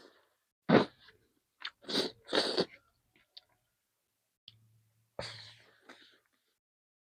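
Close-miked mouth sounds of eating chicken: a handful of short, separate bites and chews with silent gaps between them.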